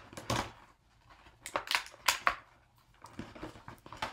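Toy packaging being torn and crinkled open by hand: scattered crackles and rips, loudest around two seconds in.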